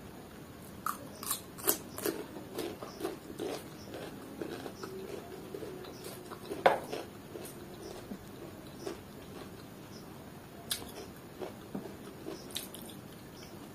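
Close-up eating sounds: crunchy bites and chewing of a fresh cucumber slice, a dense run of clicks in the first few seconds, then scattered softer mouth clicks and smacks, with one sharp click about halfway.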